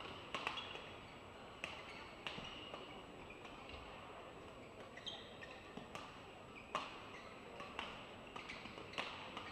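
Badminton rally: rackets striking a shuttlecock back and forth, sharp hits spaced about a second apart, with brief squeaks of shoes on the court between shots.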